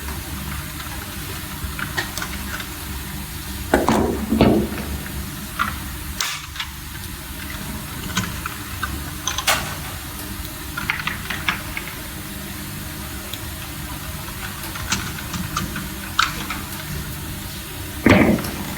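Scattered small clicks and taps of hands fitting neutral wires into the terminals of DIN-rail devices, with two louder rubbing thumps about four seconds in and near the end, over a steady low hum.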